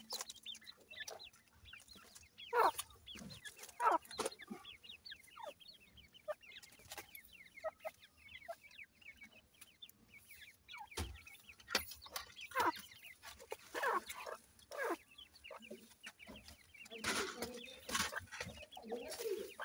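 Teetar (francolin) chicks peeping: a constant stream of thin, high, quickly falling cheeps, with louder, fuller calls every few seconds.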